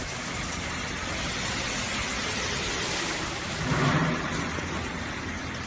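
Steady whirring noise of running snack-food production machinery, with a brief louder swell about four seconds in.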